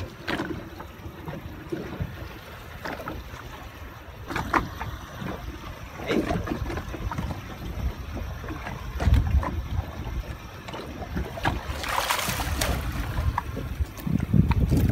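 Wind noise on the microphone and water moving against a small fishing boat's hull, with a few scattered knocks. About twelve seconds in comes a burst of splashing as a hooked dorado (mahi-mahi) thrashes at the surface beside the boat.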